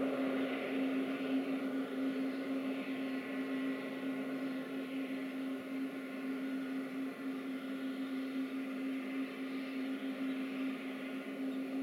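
Boeing 737-800's CFM56 jet engines running at idle as the airliner taxis slowly after landing: a steady hum and whine over a hiss, fading slightly.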